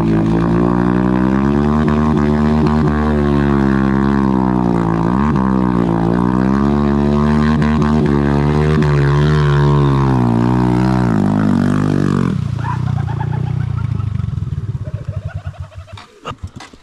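Motorbike engine revving hard and unevenly, its pitch swinging up and down as the bike is worked through deep mud. About twelve seconds in the revs drop away to a slowing, fading putter.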